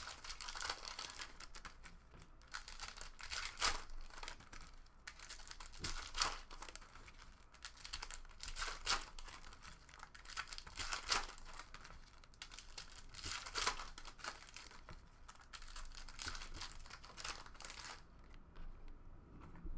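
Plastic trading-card pack wrappers being torn open and crinkled by hand, in irregular crackly bursts, with the cards handled between them.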